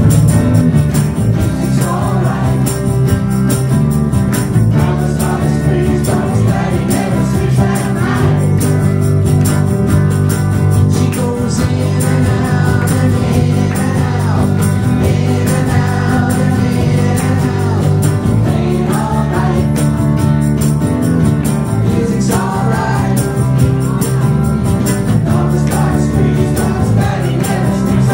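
Live band music: a man sings into a microphone over his hollow-body electric guitar, with a steady bass-heavy accompaniment.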